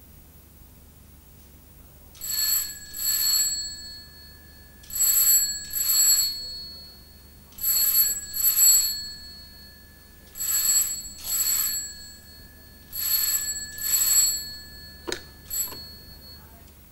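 Rotary-dial desk telephone's bell ringing in the double-ring pattern: five pairs of rings, about two and a half seconds apart. Near the end the ringing stops and the handset is lifted off its cradle with two sharp clicks.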